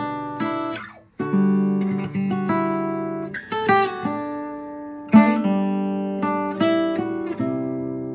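Seagull Folk acoustic guitar being played, chords and single notes plucked and strummed and left to ring out. The sound stops briefly about a second in, then the playing resumes.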